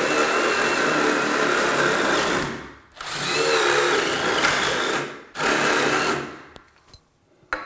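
A small electric power tool runs in three bursts under load, about two and a half, two and one second long, with a motor whine over a grinding, cutting noise. A single sharp click comes near the end.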